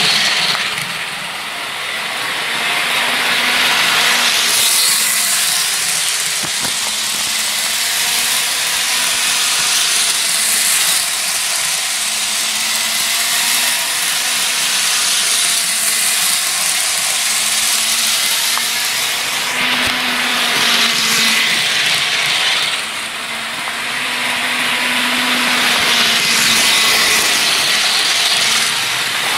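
Bachmann HO-scale model train running at full speed around an oval of track: a steady hissing whir of the locomotive's motor and the wheels on the rails, louder each time it passes close by.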